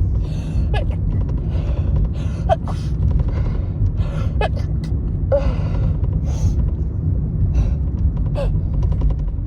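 A woman's quick gasping breaths with brief voiced catches, about once a second, as a sneeze builds that she is trying to stifle. A steady low rumble of the car runs underneath.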